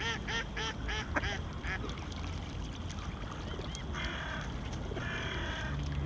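Duck quacking: a quick series of about six short quacks, roughly three a second, in the first two seconds, then two longer raspy sounds near the end.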